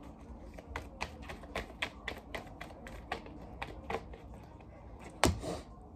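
Tarot deck being shuffled in the hands: a quick, irregular run of soft card clicks and taps, several a second, with one louder snap about five seconds in.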